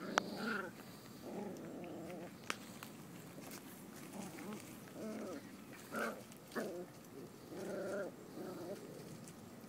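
Dachshund puppies play-fighting, giving repeated short growls, with a few sharp clicks among them.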